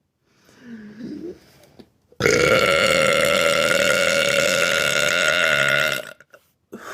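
A long, loud burp of nearly four seconds, steady in pitch and cutting off abruptly, preceded by a shorter, quieter throat sound that rises in pitch.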